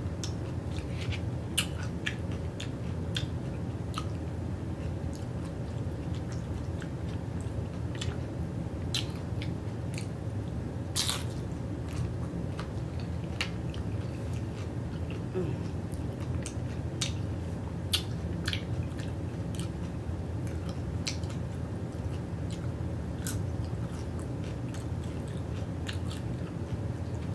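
Close chewing and biting of tortilla-chip nachos topped with sour cream and salsa, with irregular crisp crunches, the loudest about eleven seconds in, over a steady low hum.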